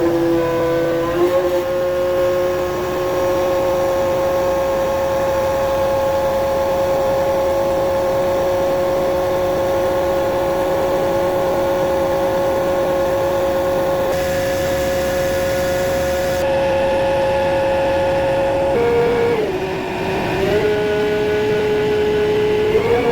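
A motor running at a steady high speed, giving one constant whining tone. About three-quarters of the way through its pitch dips lower for a few seconds, then rises again near the end.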